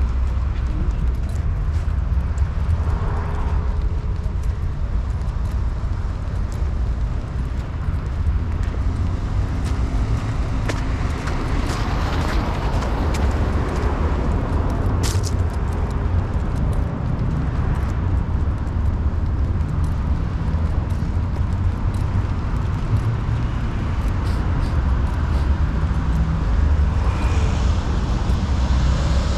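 Urban street ambience: road traffic, cars driving past over a steady low rumble, with one sharp click about halfway through.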